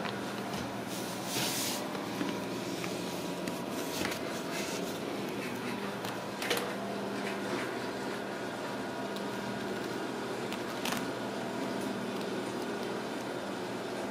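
Steady mechanical hum made of several fixed tones, with a few brief scratches and taps as kittens claw at a lace curtain and scamper on a wooden floor.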